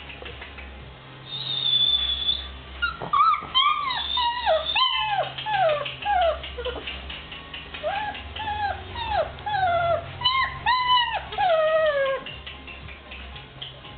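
Tosa Inu puppies whimpering and whining: a string of short, high-pitched cries that fall in pitch, starting a few seconds in and coming thick and fast for several seconds.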